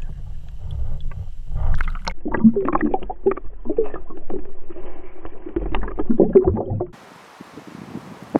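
Muffled water sloshing and splashing close to a camera at or under the water's surface, over a low rumble. It cuts off suddenly about seven seconds in, leaving faint wind.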